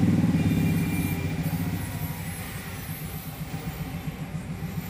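A motor vehicle engine running as a low, even drone. It is louder at first and fades over the first couple of seconds, then carries on steadily and quieter.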